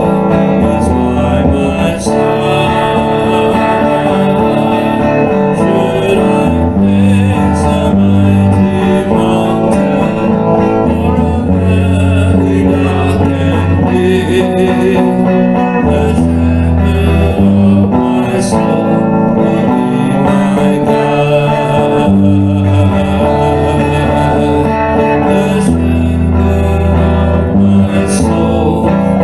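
Electric guitar playing a slow worship-song melody over a full musical accompaniment with a steady low bass line, an instrumental passage without clear singing.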